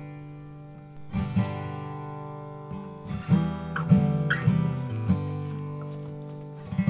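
Acoustic guitar music: plucked notes and chords ringing out and fading, busiest in the middle.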